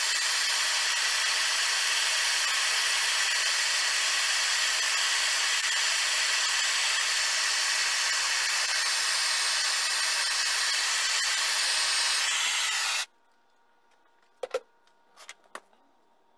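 Handheld gas torch flame hissing steadily while it heats a miniature engine crankshaft joint; the hiss cuts off suddenly near the end, followed by a few light clicks.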